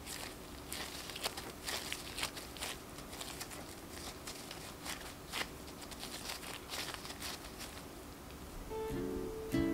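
Disposable gloves crinkling and rustling as hands press and shape soft scone dough into a ball, with irregular soft clicks and squishes. Acoustic guitar music comes in near the end.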